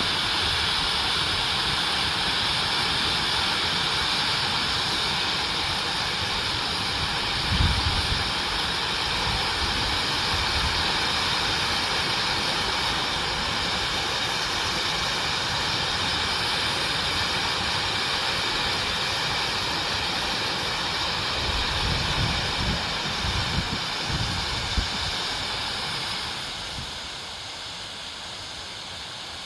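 Waterfall: a steady rush of falling water, loud and even, growing quieter near the end. A few low bumps on the microphone come about a quarter of the way in and again after twenty seconds.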